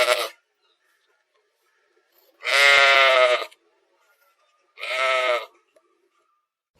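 Sheep bleating: the end of one bleat at the very start, then two more bleats a couple of seconds apart, the first about a second long and the second a little shorter.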